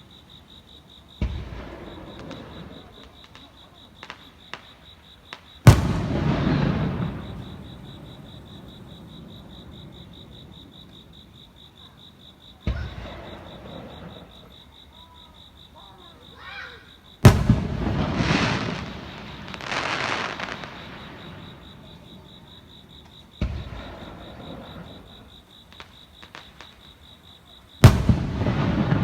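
Aerial fireworks shells bursting, six loud booms spaced several seconds apart. Each boom is followed by a long rolling rumble, and a few smaller cracks fall between them.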